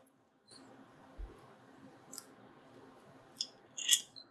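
Plastic cable connector and its wires handled and pushed into the socket of the Ender 3 Pro's extruder stepper motor: a few faint, separate clicks and rustles, the sharpest a little before the end.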